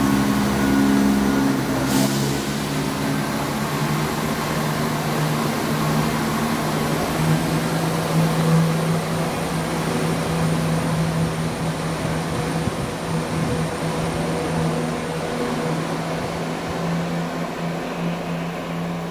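Chiltern Railways diesel multiple unit pulling away from the platform, its engines running with a steady low drone that slowly fades as the train draws off. A single sharp click comes about two seconds in.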